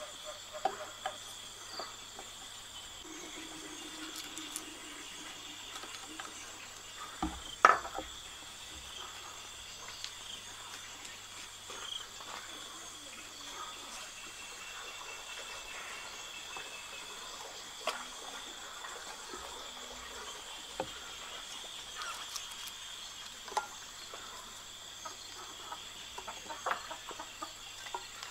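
Insects chirring steadily in a high, even drone, over a faint low hum. Scattered clicks and knocks sound through it, the loudest a sharp knock about seven seconds in.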